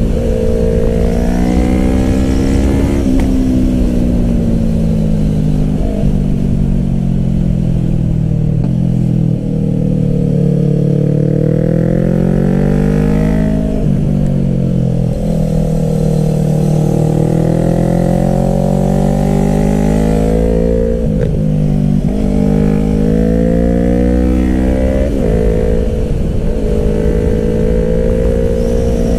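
Yamaha R3's parallel-twin engine heard from the rider's seat while riding, its note repeatedly climbing and falling as the throttle opens and closes through the bends, with sharp breaks at the gear changes. A low wind rumble runs underneath.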